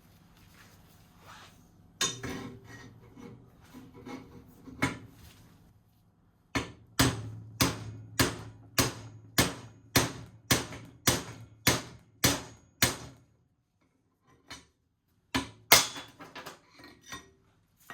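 Hammer striking a drift to drive the old steering-head bearing outer race out of a 2003 KTM 250SX frame's head tube: after a few irregular knocks, a steady run of about a dozen sharp metal blows, roughly two a second, then a short pause and a few more blows as the race comes free.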